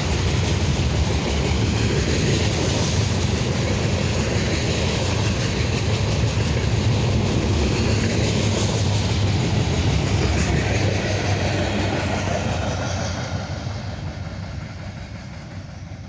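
Freight cars rolling past close by: a steady rumble and clatter of steel wheels on jointed rail. It fades over the last few seconds as the end of the train passes and moves away.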